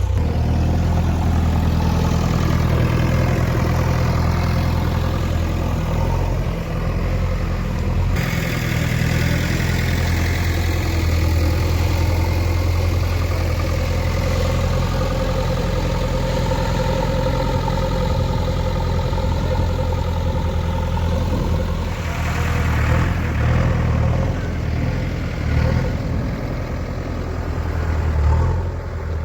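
JCB 3DX backhoe loader's diesel engine running steadily with a low drone. In the last few seconds the note turns uneven, with short surges.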